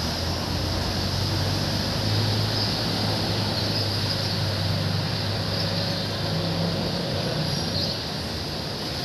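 A motor runs with a steady low hum that fades about seven seconds in, over a steady even hiss.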